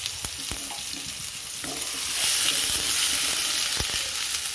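Tomato-and-spice masala sizzling in hot oil in a kadai, with a few sharp knocks. The sizzle swells about two seconds in.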